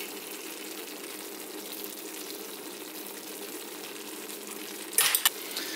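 Chicken marsala cream sauce simmering in a stainless skillet, a steady bubbling. About five seconds in there are a few sharp clicks or scrapes.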